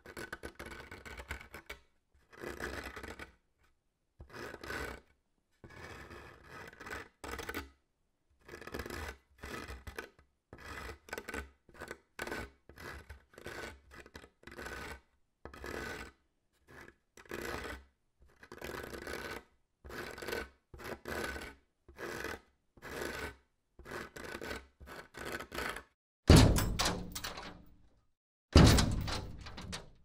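A string of short, separate noisy sound effects, each under a second and cut apart by silent gaps, then two louder heavy thuds with a deep low end near the end.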